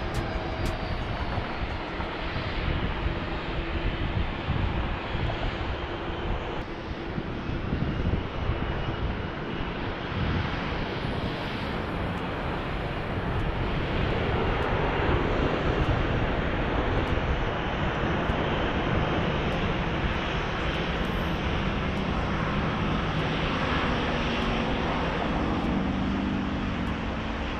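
Jet airliner engines on an airfield: a steady rush of engine noise that grows louder about halfway through, with a faint low whine near the end.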